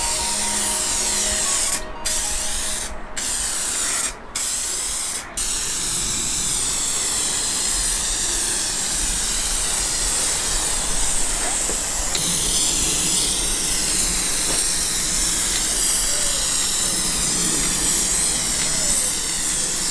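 Aerosol can of epoxy primer spraying with a steady hiss. It breaks off briefly four times in the first five seconds, then sprays on without a break.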